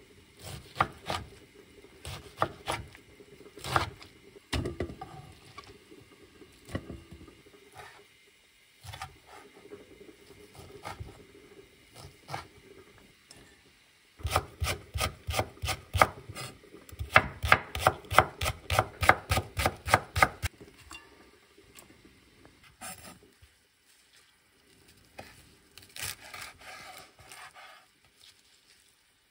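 Chef's knife chopping young napa cabbage and perilla leaves on a wooden cutting board. The strokes come scattered and uneven at first, then as a fast, even run of about four chops a second midway, then a few more after a pause.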